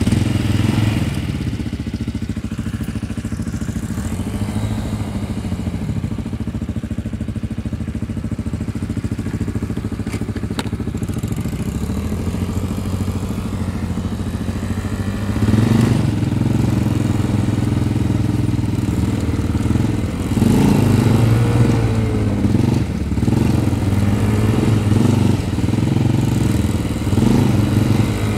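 Quad bike (ATV) engines running, the nearest being the one carrying the camera. Low, steady running at first; about halfway through they get louder and then rev up and down repeatedly.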